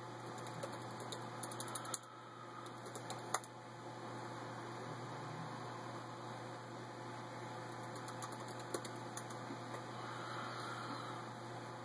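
Phone handling noise: clusters of light clicks and taps as a phone is held and turned in the hand, over a steady low electrical hum and hiss.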